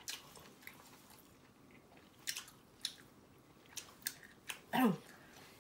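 Close-up chewing and biting into fried black tiger shrimp, with scattered sharp clicks. A brief falling voice sound, the loudest moment, comes near the end.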